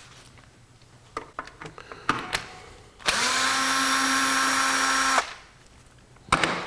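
Cordless drill/driver with a Torx bit spinning for about two seconds, backing a cover screw out of the scroll saw's housing. Its steady whine rises briefly as it spins up. A few light clicks of handling come before it, and a sharp clack comes near the end.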